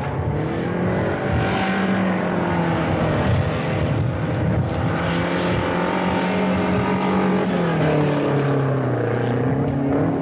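Race car engines running hard around a grass track, revving up and down. The engine note falls away about three-quarters of the way through, then climbs again near the end.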